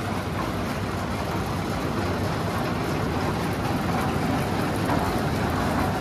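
Self-drive lift mixer machine's three-cylinder Mahindra engine running as the machine is driven along the road: a steady, dense engine and road noise.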